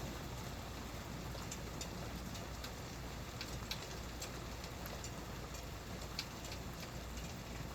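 Steady rain falling, with irregular sharp drip taps about once a second.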